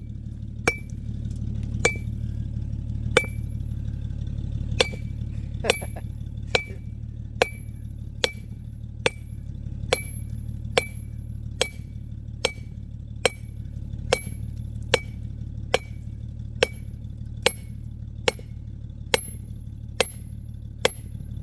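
A hand sledgehammer striking a steel chisel held against a rock, a steady run of ringing metallic clinks a little faster than one a second, breaking up the stone.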